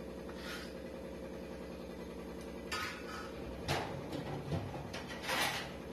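A few short scrapes and knocks of kitchen utensils being handled around an aluminium pressure cooker, over a steady low hum.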